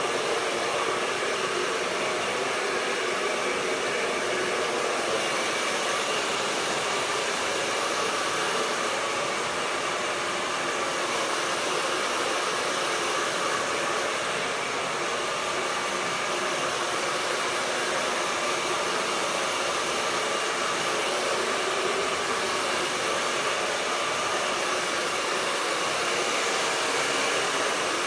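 Handheld hair dryer running steadily, blowing hair dry.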